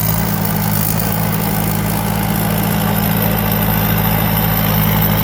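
Thai Seng 'Super Jiw' six-ton rice combine harvester running, its four-cylinder turbocharged diesel engine giving a steady, even hum.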